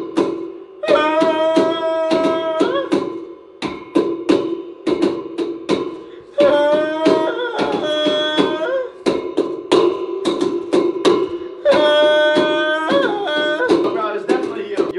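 Improvised beat drummed by hand on a metal four-poster bed frame: quick rhythmic strikes that ring on. A man's voice sings long held notes over it three times.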